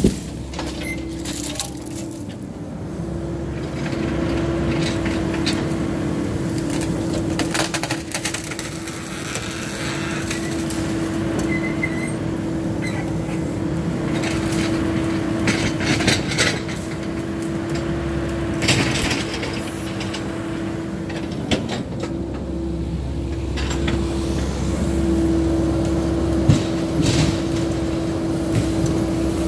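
Cat 308E mini excavator running and working, its diesel engine and hydraulics giving a steady hum that gets louder about four seconds in, with scattered knocks and cracks as the machine swings and digs.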